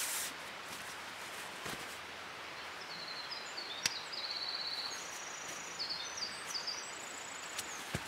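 Quiet woodland background with a small songbird singing a string of quick, high trills at shifting pitches from about three seconds in. Soft rustles and a few sharp clicks come from a sleeping pad being unrolled on the forest floor.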